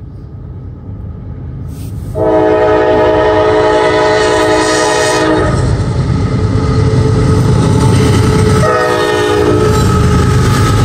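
CSX unit grain train's diesel locomotives approaching and passing close by, their engines rumbling louder as they go past, with two long blasts of a multi-tone air horn: the first about two seconds in, lasting about three seconds, the second starting near the end.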